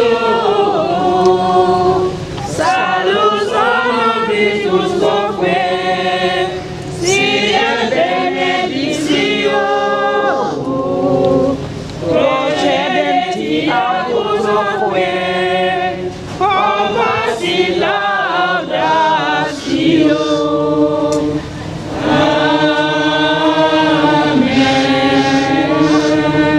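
A choir and congregation singing a slow hymn unaccompanied, in sustained phrases with short breaks for breath between them.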